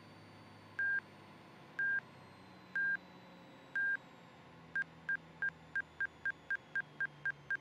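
Angle-of-attack warning tone from the EFIS, heard as short, high, single-pitched beeps. They come about once a second, then from about five seconds in they speed up to three or four a second as the angle of attack rises toward the stall in the landing flare.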